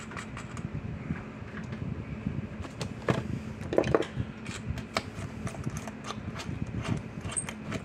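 Small scattered metallic clicks and taps as a nut is threaded onto a fence charger's terminal bolt and turned with a hand nut driver, over a steady background hum.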